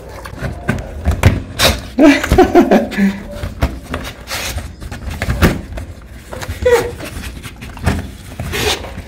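Two dogs nosing at the holes of a false door board to get a treat: snuffling with irregular knocks and bumps as their muzzles push against the board.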